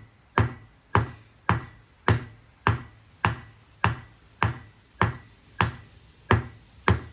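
3-pound dead blow hammer striking a 1 1/8 inch socket set on a new spindle bearing, tapping the bearing down into a Dana 44 TTB spindle. About a dozen sharp, evenly spaced knocks come a little under two a second, each with a brief metallic ring.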